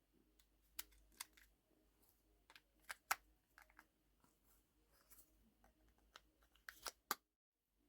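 Scattered, irregular clicks and taps from a Siemens S45 button mobile phone being handled and its keys pressed, cutting to dead silence shortly before the end.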